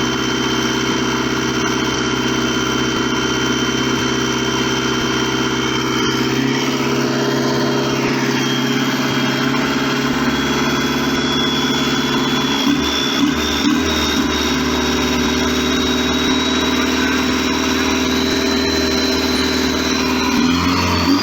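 Isuzu 4JJ1 2.5-litre turbo diesel engine of a longtail boat running at a steady speed. A thin high whine rides over it and climbs slowly in pitch through the second half.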